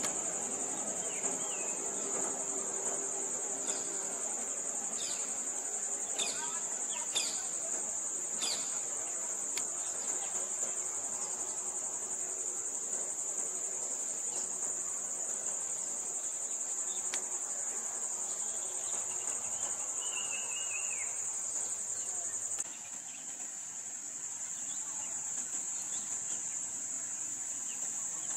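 Steady, high-pitched chorus of insects in roadside jungle, with a few short bird chirps in the first third and one brief falling bird call about two-thirds through.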